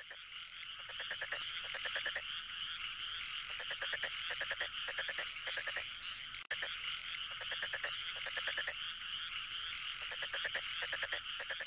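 A dense chorus of frogs calling: steady trilling and croaking, with repeated short rising calls above it.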